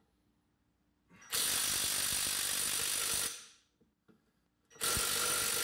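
Cordless impact wrench hammering on a rear differential's pinion nut in two bursts of about two seconds each, the second starting near the end. The socket is barely turning because the nut is now crushing the pinion's crush sleeve.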